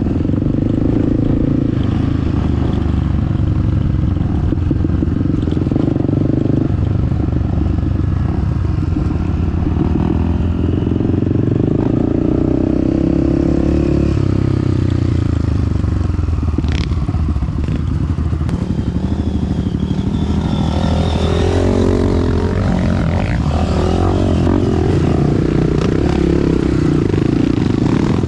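Honda CRF250F dirt bike's single-cylinder four-stroke engine running steadily while riding a trail, with the revs rising and falling several times in the last third.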